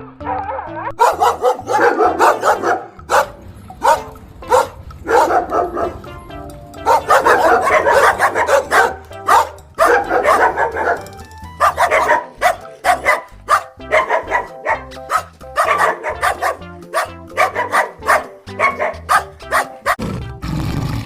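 A dog barking again and again, in quick runs of barks, over background music with a steady bass line.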